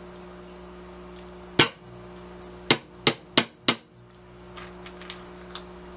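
Restored Marton tack hammer tapping a small nail: one sharp tap, a pause, then four quick taps about a third of a second apart, followed by a few faint light clicks.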